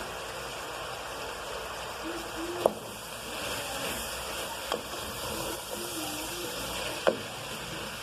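Ground-beef filling with tomato, onion and bell pepper sizzling steadily in a pan while being stirred, with three sharp clinks of the spoon against the pan.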